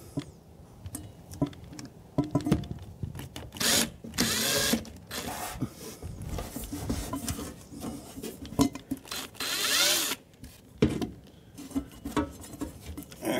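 Cordless drill-driver running in two short bursts, about four seconds in and again near nine seconds, driving a screw. Clicks and rattles of handling come between the bursts.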